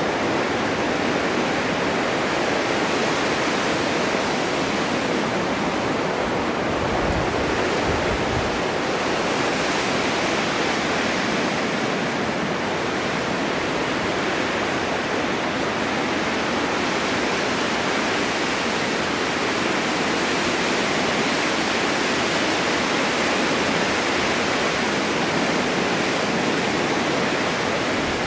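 Steady snowstorm wind: an even, dense hiss of blowing wind that swells slightly now and then, with a brief low rumble about seven seconds in.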